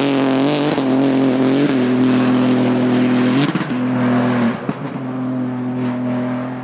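Rally car engine running hard at high revs, its pitch wavering at first and then held steady. It breaks off briefly about three and a half seconds in and again a second later, then fades as the car goes away.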